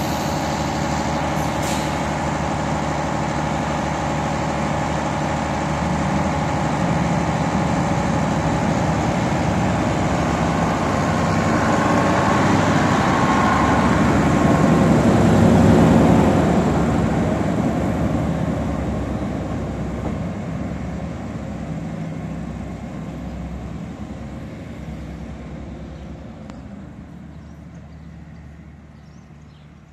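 MAN diesel railcar pulling away from a station, its diesel engine running under load. The sound swells to a peak about halfway, then fades steadily as the train draws off into the distance.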